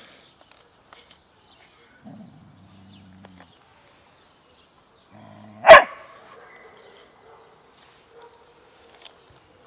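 Large dog growling low, then a low growl running into one loud, sharp bark a little past halfway, as it squares off with a kitten over food. Faint bird chirps early on.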